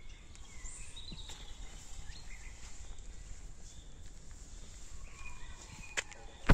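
Forest birds chirping and calling in short scattered notes over a low steady rumble. There is a faint click about six seconds in and a much louder sharp click or snap right at the end.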